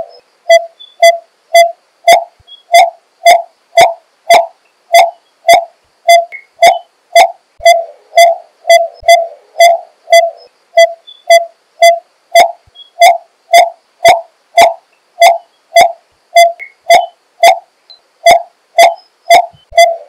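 Coppersmith barbet calling: its hollow, evenly repeated 'tuk' note, about two a second without a break.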